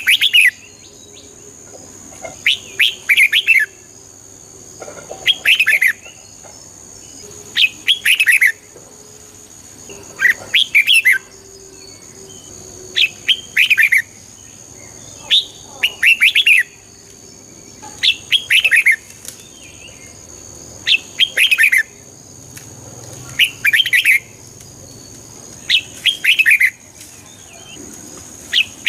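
Red-whiskered bulbul singing: a short, chirpy song phrase repeated about every two and a half seconds, around eleven times.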